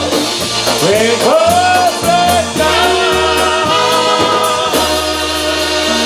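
Live polka band with saxophones and trumpet playing the close of a song, with singing gliding over a steady bass line. About five seconds in, the band settles onto a held final chord.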